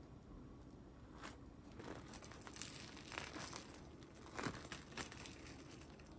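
Faint crinkling and rustling, as of something being handled, in several short bursts, the loudest around the middle and just after.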